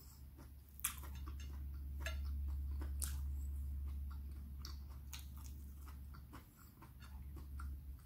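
Close-up chewing of a mouthful of steamed okra, with small wet mouth clicks and smacks scattered irregularly through it, over a steady low hum.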